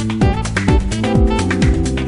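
Electronic dance music with a kick drum about twice a second, hi-hats and held synth chords.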